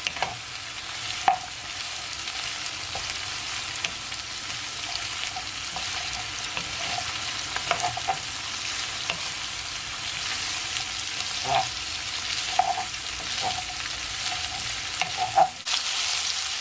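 Sliced onions, carrots and peppers sautéing in oil in a nonstick frying pan: a steady sizzle, with a wooden spoon stirring and knocking against the pan now and then. The sizzle grows louder about a second before the end.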